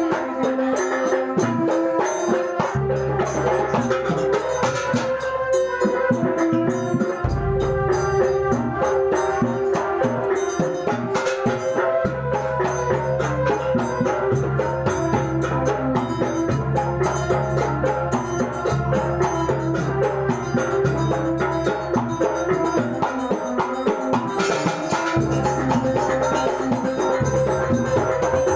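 Kuntulan ensemble playing traditional Banyuwangi percussion music: fast, dense strikes on tuned metal or wooden bars, with hand drums and deep low notes that drop out and return several times.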